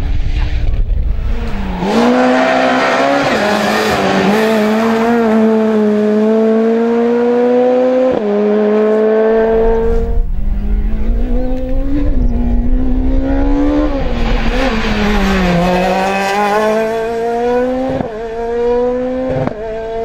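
Rally cars driven hard, their engine pitch climbing through the revs with sudden drops at gear changes about eight and ten seconds in. The engines climb again later, with several sharp cracks near the end.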